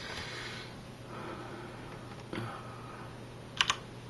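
Soft breathy noise close to the microphone, then two quick computer keyboard key clicks near the end.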